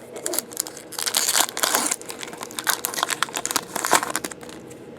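Crinkling and crackling of a foil trading-card pack wrapper being handled and crumpled, in an irregular run of bursts that dies down near the end.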